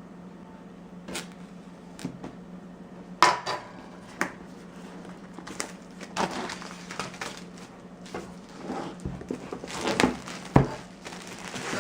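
Hands handling and opening a cardboard product box: scattered taps, knocks and scrapes with rustling between, the loudest knocks about three seconds in and again around ten seconds in, over a low steady hum.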